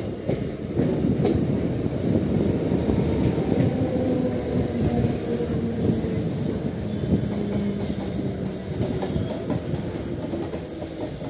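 Mumbai suburban electric local train running, heard from its open doorway: a steady rumble of steel wheels on rail with a few sharp knocks near the start, and a thin high wheel squeal from about halfway through.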